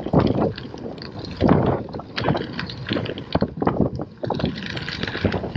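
Scott Speedster Gravel 40 gravel bike's tyres crunching over a dirt and gravel track, with uneven rattles and knocks as it bounces over the rough surface.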